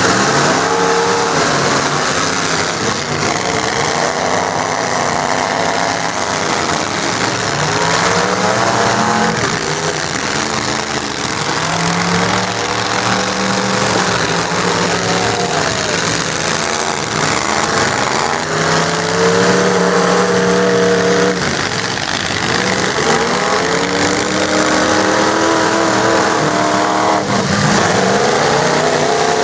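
Several demolition-derby stock pickup trucks' engines running and revving hard at once, pitches repeatedly rising and falling as they drive and ram each other, with a crash of metal near the end.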